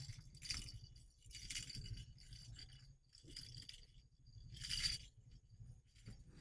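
Plants rustling in four short bursts, over a faint low rumble.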